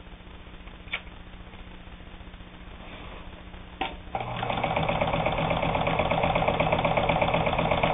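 Necchi Supernova Ultra sewing machine: a low hum with two sharp clicks, then about four seconds in it starts running steadily at a fast, even stitching rhythm, sewing a zigzag stitch.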